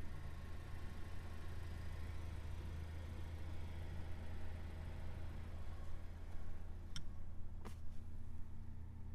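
Honda Civic Type R's turbocharged 2.0-litre four-cylinder idling steadily as a low, even hum. Two sharp clicks come about seven seconds in, a little over half a second apart.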